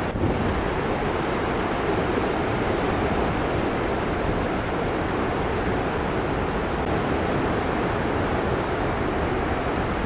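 Ocean surf breaking and washing onto the shore, a steady roar of white water.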